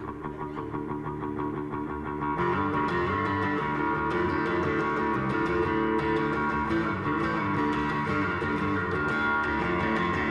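Instrumental guitar music: a strummed guitar with bass, growing fuller about two seconds in.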